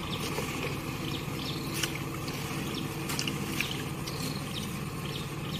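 A small engine running steadily at idle, a low even hum, with a few light clicks and rustles from a mesh fish trap being handled.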